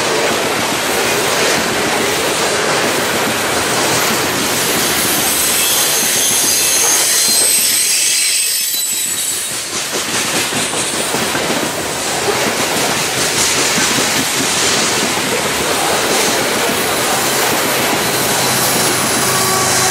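Full-size BNSF freight train rolling past: steel wheels clattering along the rails, with high wheel squeal in the middle. Near the end a diesel locomotive's steady engine hum joins in.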